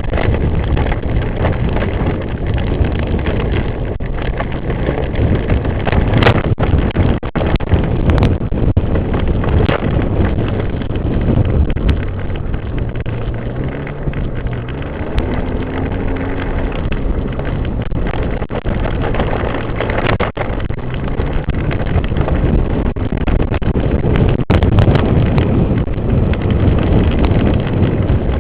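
ATV engine running on a trail, its pitch rising and falling with the throttle, under heavy wind noise on the microphone, with a few sharp knocks.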